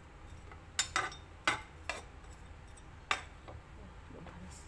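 Metal spatula knocking and scraping against a nonstick frying pan while stirring sliced shallots and garlic in oil, about five sharp clinks spread over the first three seconds.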